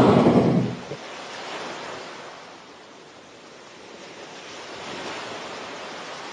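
A whale's blow at the surface: a loud rushing whoosh that dies away within the first second. After it comes a steady wash of sea noise that swells and ebbs twice.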